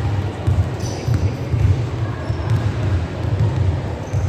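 Basketball game sounds on a wooden sports-hall court: a steady low rumble, a few brief high squeaks of shoes on the floor, and a basketball bouncing.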